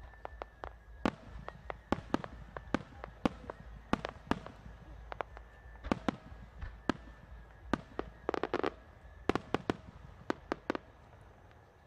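Aerial firework shells bursting in a rapid, irregular series of sharp bangs, with a quick crackling cluster of reports about eight and a half seconds in. The bangs thin out and grow fainter near the end.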